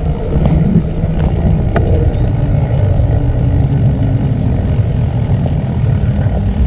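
Wind buffeting the microphone of a camera on a moving bicycle, a steady heavy rumble, mixed with road traffic noise and a few small clicks and rattles.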